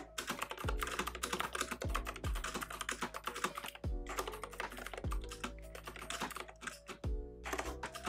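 Typing on an Azio Retro Compact mechanical keyboard with Kailh switches and round typewriter-style keycaps: a quick, uneven run of key clicks. Background music plays underneath.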